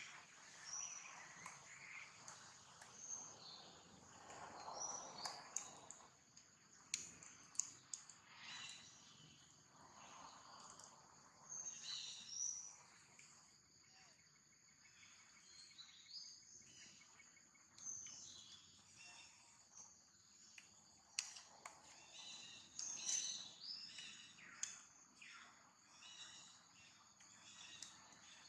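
Faint outdoor ambience: a steady high-pitched insect drone, with scattered short chirps and a few sharp clicks.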